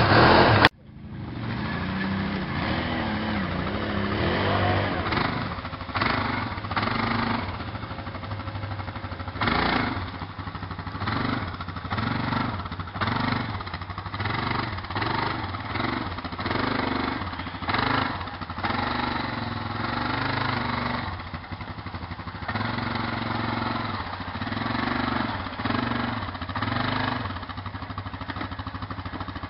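Quad bike engine revving up and down in repeated surges while it pulls through deep mud. A louder burst of engine cuts off abruptly just under a second in.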